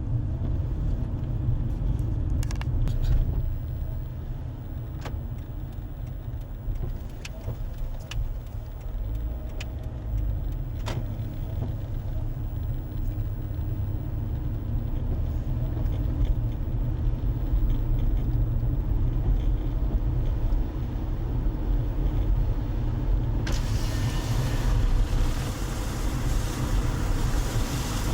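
Road noise of a car driving, heard from inside: a steady low rumble with scattered light clicks and rattles. About 23 seconds in, a louder hiss comes in and stays.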